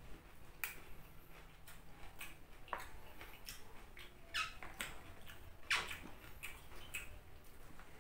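Close-up chewing of crisp raw vegetables: irregular crunches and wet mouth clicks, the loudest a little past halfway.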